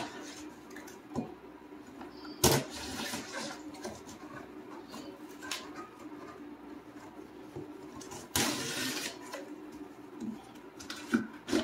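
Knife slitting the packing tape on a large cardboard box. There is a sharp rip about two and a half seconds in and a longer one about eight seconds in, with light taps and scrapes on the cardboard between.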